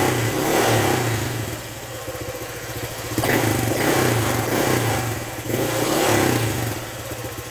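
Honda Click scooter's single-cylinder engine revved hard twice through an aftermarket MT8 exhaust pipe with a stainless tip, each rev held for a few seconds before falling back. Near the end it drops back toward idle.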